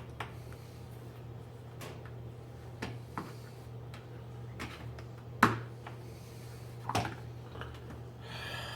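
Plastic box-fan blade being handled and pushed against the fan's motor shaft: a few scattered clicks and knocks, the loudest about five and a half seconds in. The blade's hub is too small for the shaft and will not go on.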